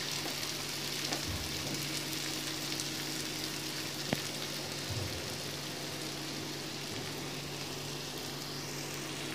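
Sliced onions sizzling steadily in hot oil in a pan as they fry to brown, with a single click about four seconds in.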